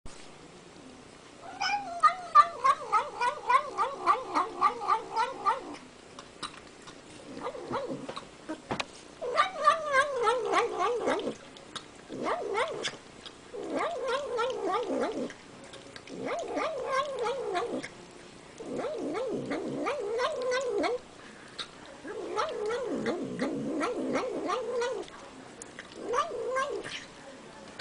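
Domestic cat making wavering, warbling calls while it eats, in about eight bouts of one to four seconds each, with quick clicks of chewing between and over them.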